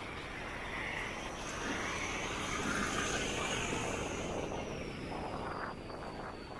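A vehicle passing by, its noise swelling to a peak about three seconds in and then fading, with a high whine that slowly falls in pitch.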